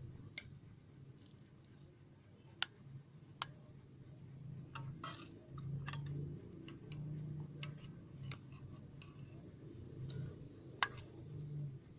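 Dog eating, with scattered sharp clicks at irregular intervals over a low background hum.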